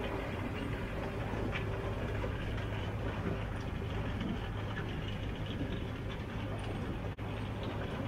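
Grimme SE 75-55 single-row potato harvester at work, lifting potatoes: a steady mechanical rumble over a constant low hum, with scattered light clatter. The sound drops out for an instant about seven seconds in.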